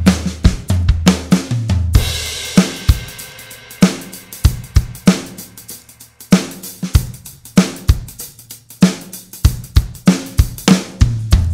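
Background music: a steady drum-kit beat with kick, snare and hi-hat, a cymbal crash about two seconds in, and low bass notes near the start and end.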